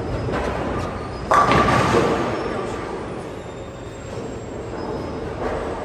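Bowling alley noise with a loud crash of pins being struck about a second in, fading out over the next second.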